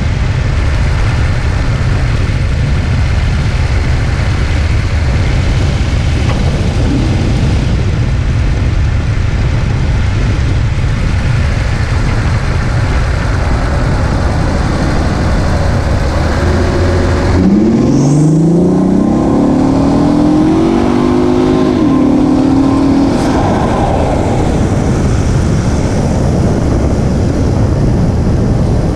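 Road and wind noise from a 2017 Infiniti Q50 on the move. About two-thirds of the way through, its VR30 twin-turbo V6 revs up, rising in pitch for a few seconds, then holds a steady note briefly.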